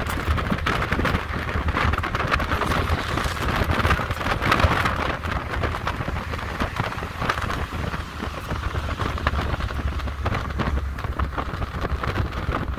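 Wind buffeting and crackling on the microphone over a low, steady vehicle rumble, as when recording from a moving vehicle.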